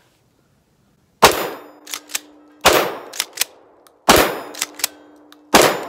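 Four loud 12-gauge shotgun shots from a Century Dynamics PAS-12 pump-action, fired about a second and a half apart with Fiocchi birdshot. Each shot is followed by two quick sharp clicks as the pump is worked to chamber the next shell, and a faint low ring lingers between shots.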